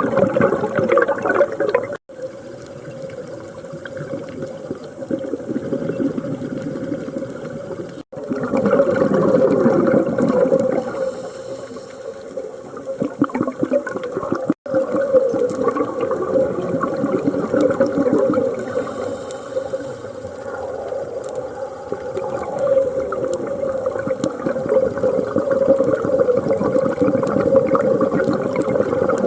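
A scuba diver breathing through a regulator underwater: loud surges of bubbling exhaled air alternating with quieter stretches of inhaling. The sound drops out for an instant about 2, 8 and 14 seconds in.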